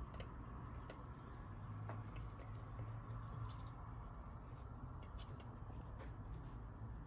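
Faint, scattered soft scratches and ticks of two British shorthair kittens' paws and claws on a crocheted yarn basket as they play, over a steady low hum.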